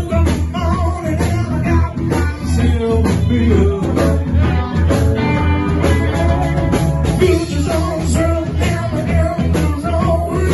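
Live blues-rock band playing loud through a PA: electric guitar, keyboard and drums with a steady beat, and vocals on the microphone.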